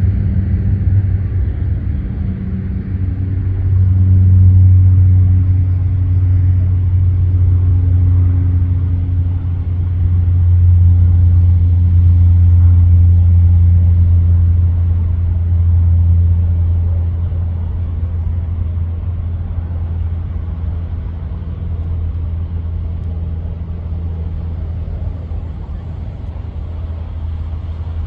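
Long rolling thunder from a nearby thunderstorm after a lightning flash: a deep rumble that swells twice, about four seconds in and again a few seconds later, then slowly dies away.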